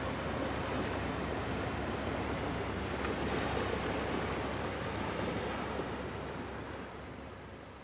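Steady rushing wash of river water with wind noise over it, fading down near the end.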